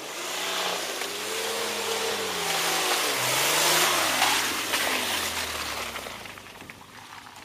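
Off-road SUV driving through mud and brush as it passes close by. Its engine pitch rises and falls, and tyre and undergrowth noise grows loudest about four seconds in, then fades as it moves away.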